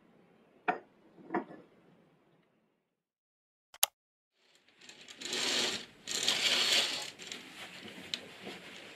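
Two light clinks of tableware, a ceramic cup and saucer or a spoon against glass, then after a pause a single short click. This is followed by a few seconds of loud rustling and handling noise, strongest in the middle.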